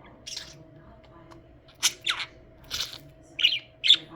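Budgerigar giving a string of short, sharp chirps and squawks, about six calls in four seconds, the loudest two close together near the end.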